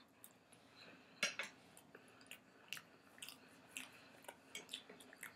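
A person chewing a mouthful of food close to the microphone: a string of short, soft, irregular mouth clicks, a few a second.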